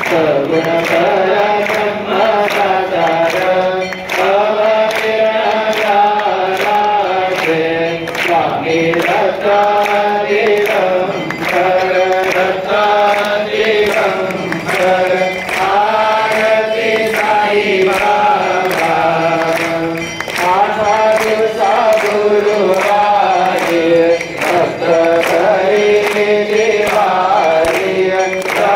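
A group of voices singing a devotional chant, kept to a steady beat of sharp strikes about once or twice a second.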